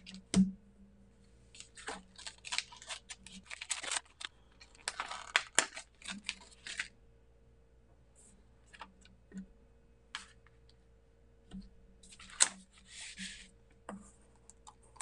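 Clicks, taps and short rustles of clear stamps and an acrylic stamping block being handled on a desk, with paper rustling. There is a busy stretch of rustling and clicking in the first half and a shorter one later.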